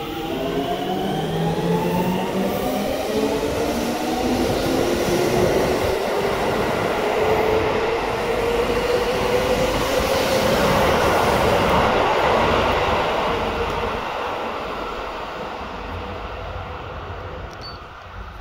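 Seibu 6000 series train's Hitachi GTO-VVVF inverter whining in rising pitch as the train accelerates, heard from inside the car, with wheel and rolling noise building under it. The noise fades over the last few seconds.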